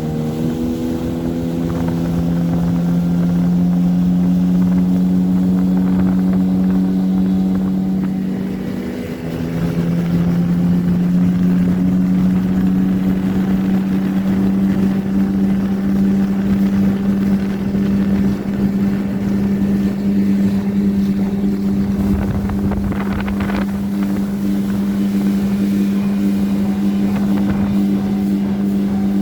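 A 9.9-hp outboard motor drives a small inflatable boat at speed. Its note climbs in the first second, dips briefly about nine seconds in, then holds steady and high.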